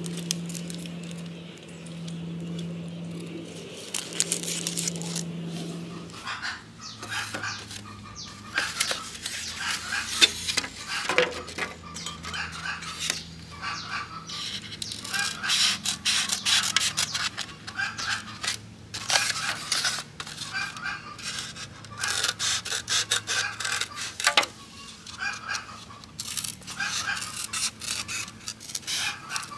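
Scissors cutting through a white foam (polystyrene) takeaway lunch box: many short, sharp snips and crunching, squeaky cuts through the foam, with the box being handled. For about the first six seconds, before the cutting starts, there is only a steady low hum.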